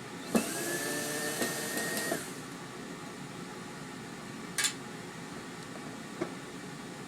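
Power drill backing a wood screw out of a subwoofer cabinet: the motor whines for about two seconds with its pitch rising slightly, then stops. A sharp click follows a couple of seconds later.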